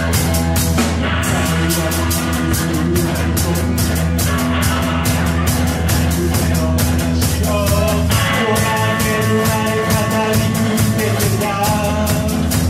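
Live rock band playing electric guitars, bass and drum kit with a steady cymbal beat. About eight seconds in, a new lead melody with bending, wavering notes comes in over it.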